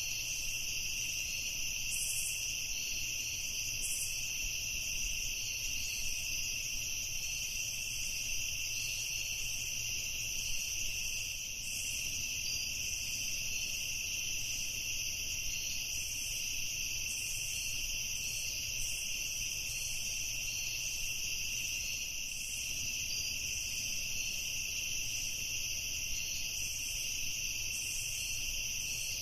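Evening chorus of insects, an unbroken high trilling at two steady pitches.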